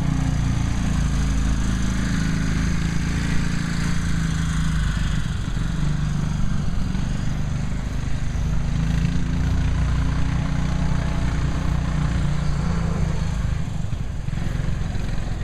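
16 hp Tecumseh engine of a 1974 Maki amphibious car running as the car drives off, its pitch rising and falling with the throttle. It fades a little near the end as the car pulls away.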